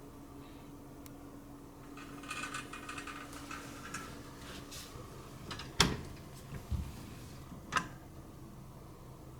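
Faint rustling for a couple of seconds, then a sharp knock about six seconds in, a dull thump just after it and a lighter click near the end, over a low steady hum.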